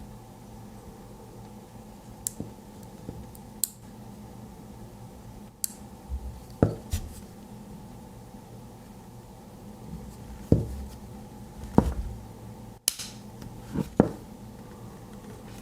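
Scattered sharp clicks and light metallic taps, about a dozen at irregular intervals, from handling a Victorinox Swiss Army knife and small neodymium magnets, over a faint steady low hum.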